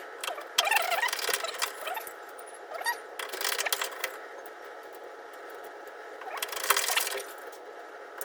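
Hands working plastic parts and wiring inside an appliance: scattered clicks, rattles and rustles that come in three short spells.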